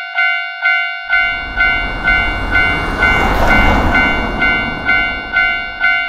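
Japanese level-crossing warning bell ringing its repeated "kan-kan" at about two strikes a second. From about a second in, the rumble of a passing vehicle rises over it, peaks midway and fades toward the end.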